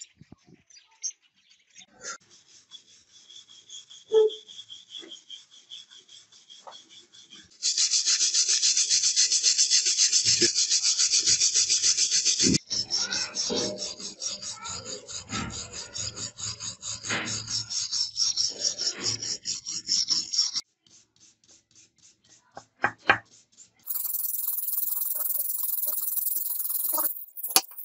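Hand work on a rusty axe head and a wooden handle blank, heard as scraping and rubbing in several runs. The loudest is a steady rasping from about eight to twelve seconds in. Uneven scraping strokes with a few knocks follow, then a quieter patch of clicks and a brighter hiss near the end.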